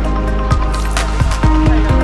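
Background music with a steady drum beat, deep bass and sustained synth notes.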